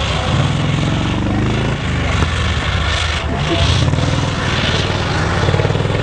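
Off-road 4x4 vehicle's engine running under load, revving up twice so its pitch rises and falls.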